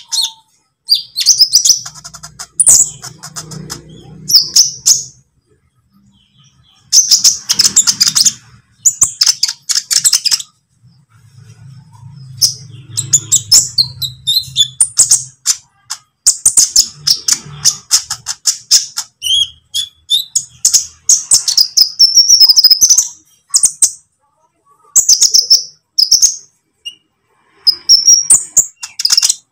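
Olive-backed sunbird (konin) singing: rapid high-pitched chirps and twittering trills in bursts of a few seconds, with short pauses between them. A low hum runs under some of the passages.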